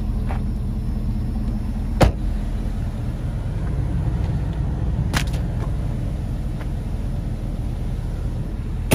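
GMC Yukon Denali's V8 engine idling steadily with a low rumble. A few sharp clicks sound over it, the loudest about two seconds in and right at the end.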